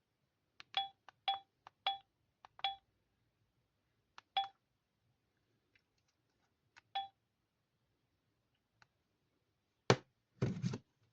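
Digma Linx A106 mobile phone keypad: six short key beeps at irregular intervals, each just after a faint button click. Near the end, a loud knock and then a brief clatter.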